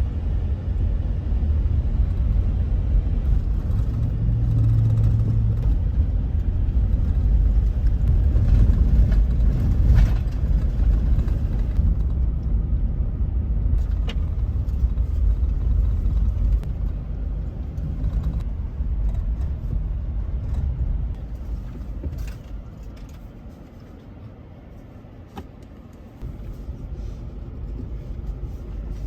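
Vehicle driving, with a steady low rumble of engine and road noise and occasional clicks and rattles. It goes quieter for a few seconds near the end.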